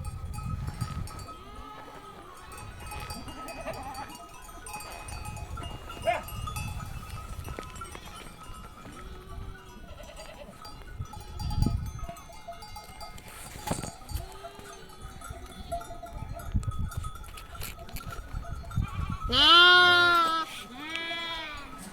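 A flock of sheep bleating, mostly faint and scattered, with one loud close bleat near the end followed quickly by a shorter one.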